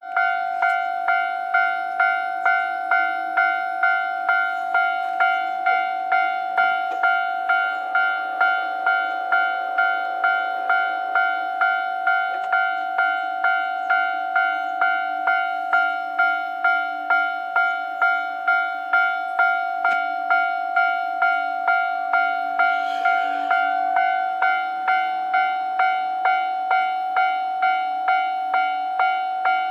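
Japanese railway level crossing warning bell ringing over and over, about one and a half strikes a second, each a single ringing tone: the crossing is closed for an approaching train.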